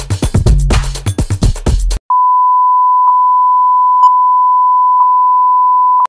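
Background music with a steady beat, cut off about two seconds in by a steady 1 kHz test tone, the reference tone that goes with colour bars, with a faint tick in it about once a second.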